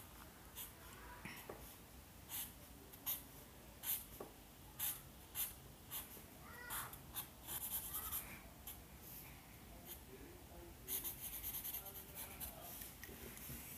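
Black Sharpie permanent marker drawn across paper in short strokes, one every half second or so, as lines are inked in. Near the end it turns to a quicker run of scratching strokes.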